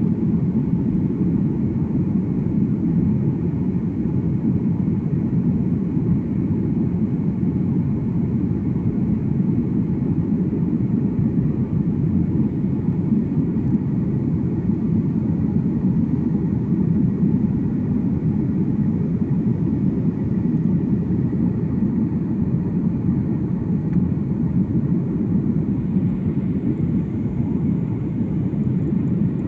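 Steady low rumble of an airliner's engines and airflow heard inside the passenger cabin during flight.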